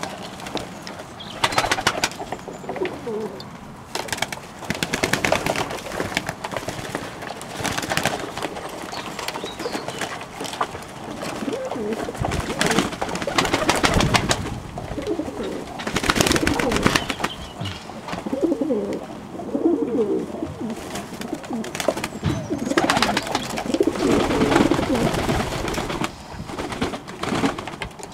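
Pigeons cooing again and again, a male's courtship cooing while he chases a hen, typically a sign that the pair is about to nest and lay. Sharp knocks and rustles are heard among the coos.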